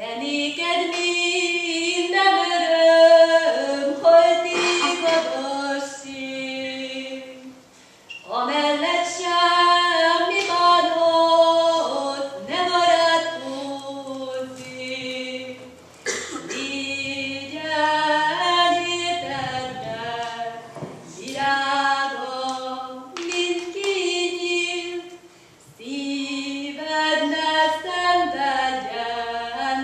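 A woman singing a Hungarian folk song solo and unaccompanied, in long phrases with brief pauses for breath about 8, 16 and 25 seconds in.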